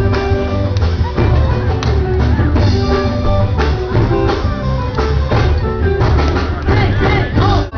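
Live band playing upbeat music with drums, bass and electric guitar for a Polynesian dance number.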